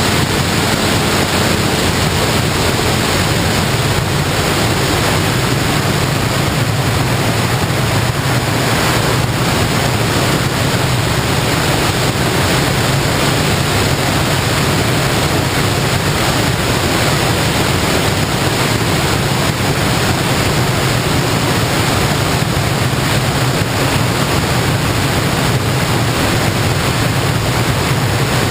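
Steady rush of wind on the microphone of an FPV aircraft in flight, with a low drone underneath that stays unchanged throughout.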